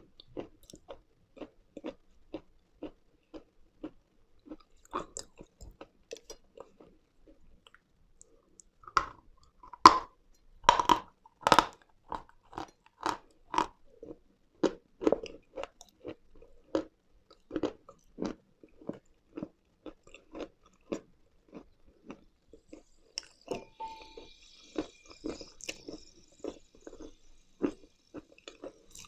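Close-miked chewing of dry, chalky lumps: steady crunches about two a second, with a run of louder, sharper crunching bites about ten seconds in.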